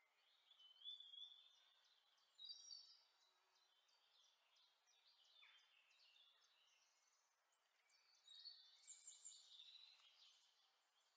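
Near silence: faint bird chirps and twitters in short high phrases, a few seconds apart, over a faint hiss.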